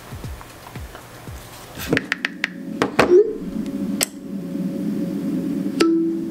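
Music with a deep, regular beat for about two seconds. Then a few sharp clicks and the opening of a song played through a small 3D-printed Bluetooth speaker using a Rockler single speaker kit, heard in a small room.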